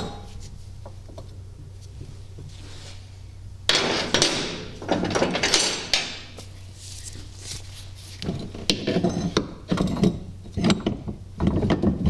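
Metal parts clanking, scraping and rattling as a lift block and leaf spring are handled and fitted onto a golf cart's rear axle. A burst of scraping and rattling comes about four seconds in, then a run of knocks and rattles from about eight seconds on.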